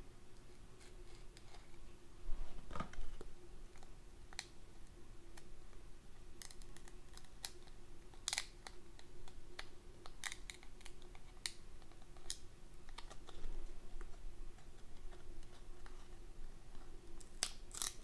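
Fingers picking at and peeling apart a thick cardboard rip card (Upper Deck Ice 'Frozen in Ice') along its perforations: scattered small clicks and crackles of the card stock, a few louder ones about two and eight seconds in.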